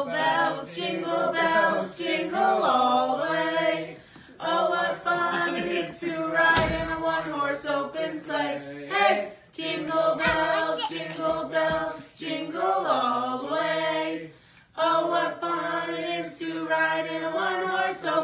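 Several voices singing a tune together without words, in phrases broken by short pauses. There is a short thump about six and a half seconds in.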